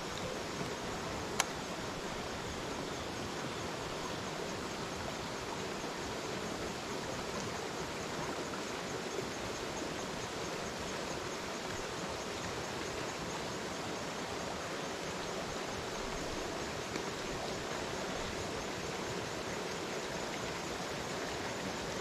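Steady rush of flowing creek water, an even hiss with no breaks, and a single sharp click about a second and a half in.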